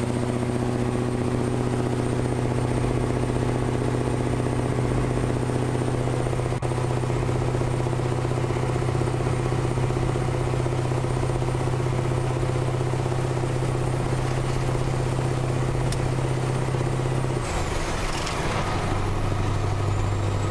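A lorry's V8 diesel engine drones steadily at motorway speed. Near the end, a brief rush of noise passes and the engine note drops lower.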